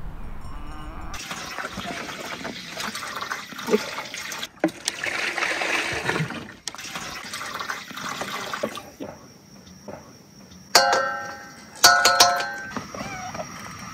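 Milk pouring from a plastic bucket through a strainer into a steel basin, splashing steadily, then stopping. Near the end, sharp metallic clinks on the steel basin, one and then a quick cluster of three, each ringing briefly.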